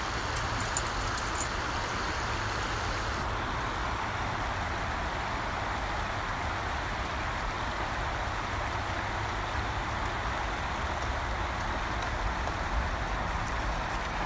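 Shallow stream running over stones, a steady rush of water with a low rumble underneath.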